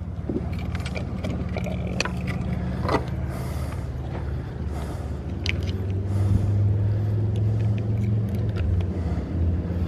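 A boat motor running with a steady low hum that grows somewhat louder past the middle, with a few sharp clicks and knocks from handling a catfish and a plastic fish lip-grip on the boat.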